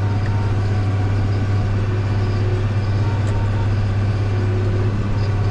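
John Deere 7810 tractor's six-cylinder diesel engine running steadily, a constant deep drone heard from inside the cab.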